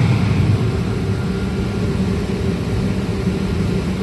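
Steady low mechanical drone of running HVAC equipment.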